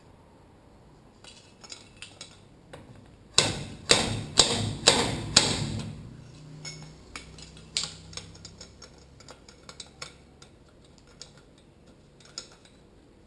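Metal-on-metal hammer blows on a motorcycle fork's stuck damper and holding tool: five sharp strikes about two a second, a single blow a couple of seconds later, and small clinks of parts being handled between them.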